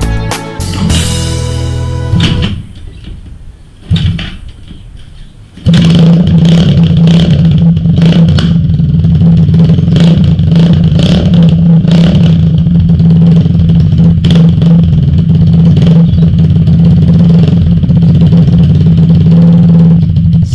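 Background music for the first couple of seconds, then, about six seconds in, the rebuilt Chinese dirt bike's engine starts running loudly at a steady speed until it cuts off abruptly at the end.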